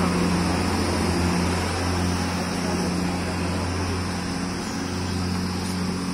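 Motor vehicle engine running, a steady low hum under an even wash of street noise.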